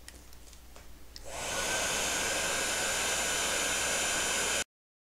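A 1.32-kilowatt heat gun starts about a second in and runs with a steady rush of blown air and a thin high whine, blowing hot air onto heat shrink tubing on a screwdriver shaft. The sound stops suddenly near the end.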